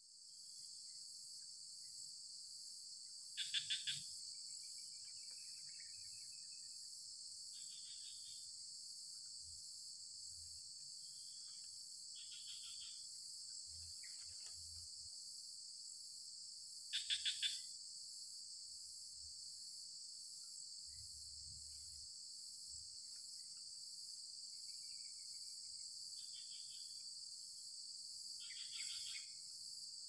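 Faint, steady high-pitched insect chorus, the chirring of crickets or similar insects. Three short, louder chirps break through it, a few seconds in, about halfway through and near the end.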